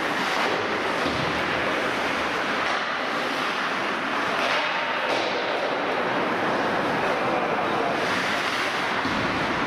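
Ice hockey game in play on a rink: a steady scraping hiss of skates on the ice, with a few faint knocks.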